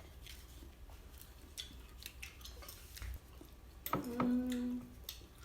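Faint scattered clicks and light handling noise, with a short hummed 'hmm' from a person about four seconds in, held for about a second.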